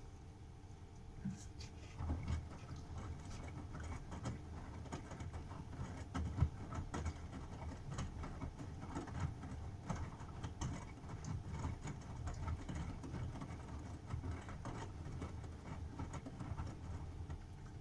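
Bosch washing machine in the wash phase of a 60 °C cotton cycle: the drum tumbling wet laundry, with irregular soft knocks and patter.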